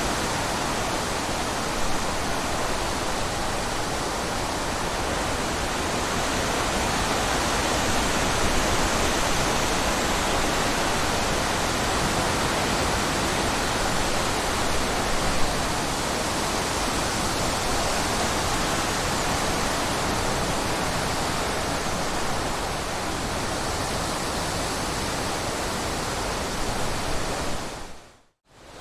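Steady rushing water, an even hiss-like roar with no tune or rhythm; it dips to silence for a moment near the end before starting again.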